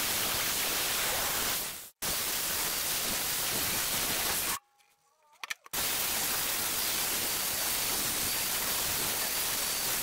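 Angle grinder with an abrasive disc grinding the surface of an anvil: a loud, steady harsh hiss of the spinning disc on metal. It cuts off abruptly for an instant about two seconds in, and for about a second near the middle.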